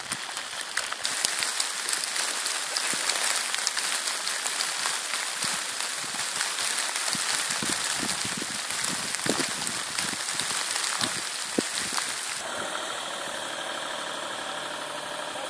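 Steady high hiss with scattered crackles; about twelve seconds in it gives way to a vehicle engine idling steadily.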